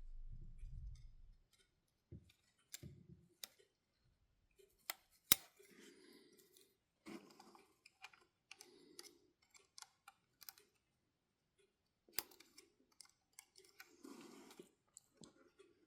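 Faint, scattered clicks and short scrapes of small plastic parts on a model locomotive's bogie being pried apart with a scalpel, with a low bump of handling in the first second and the sharpest click about five seconds in.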